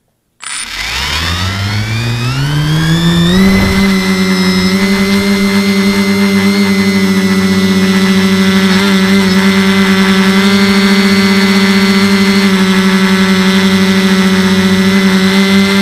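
Quadcopter's four 1050 kV brushless motors with 9x5 HQ props spinning up from rest for takeoff. Their whine rises in pitch over about three seconds, then settles into a steady hover hum, loud and close from a camera mounted on the frame.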